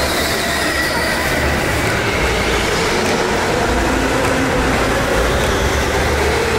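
Go-karts running laps on an indoor track: a steady, continuous mechanical rumble with a faint thin whine, with no let-up.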